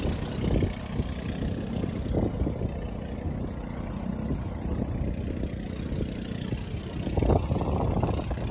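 Boat motor running as the boat pushes upstream against a flowing current, with a steady rumble and rushing-water noise. Louder surges come about half a second in, two seconds in and around seven seconds in.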